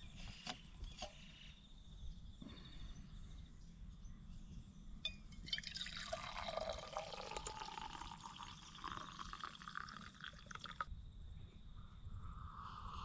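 Coffee being poured into a cup: a few clicks early on, then about five seconds of pouring from a little before halfway, its pitch climbing as the cup fills, stopping suddenly.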